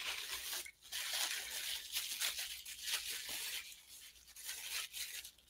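Soft white packing wrap rustling and crinkling as gloved hands unwrap it, in irregular scrunches.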